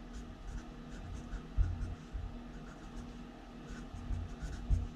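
Felt-tip marker writing on a paper pad: faint, irregular short scratching strokes, with a few soft low bumps.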